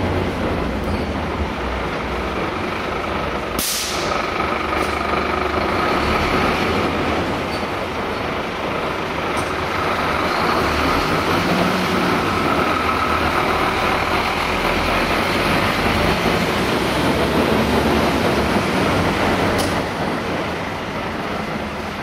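Fire truck's diesel engine running as it drives slowly out of the station and past, with a short sharp hiss about four seconds in and another near the end.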